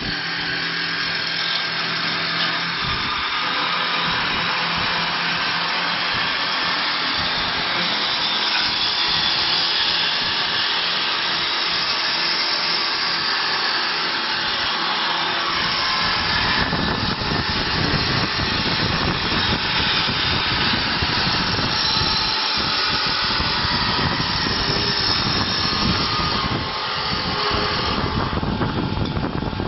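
Automatic high-speed wood copy lathe running and cutting a wooden spindle, a steady, loud machine noise with wood-shaving hiss. From about halfway the sound turns deeper and rougher.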